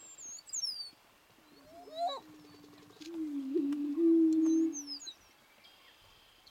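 Male greater prairie chicken booming, the low, hollow courtship moan of the mating display, made through its inflated orange neck air sacs. A short boom comes just before two seconds in, then a full boom lasting nearly two seconds from about three seconds in. High, thin falling whistles sound near the start and again about four and a half seconds in.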